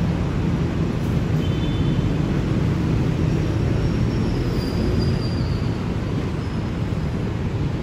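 Steady low rumble of a passenger train moving slowly some way down the line.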